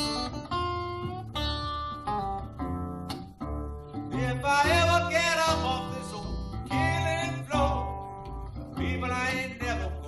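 Country-blues instrumental break: a Gretsch Jim Dandy flat-top acoustic guitar picked in a steady rhythm, joined from about four seconds in by a harmonica cupped against a vocal microphone, playing three bent, wailing phrases.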